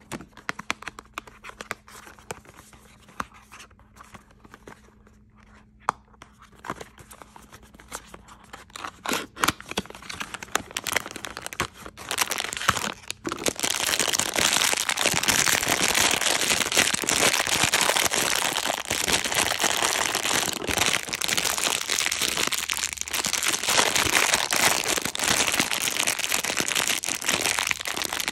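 A small cardboard box handled and opened, with scattered clicks and tearing. About halfway through, a foil wrapper is crinkled and pulled open by hand in a dense, continuous crinkle that is much louder.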